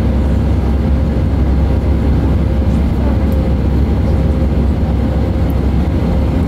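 Airbus A318's CFM56 engines and airflow heard inside the passenger cabin during the climb: a steady, deep rumble with a faint constant hum above it.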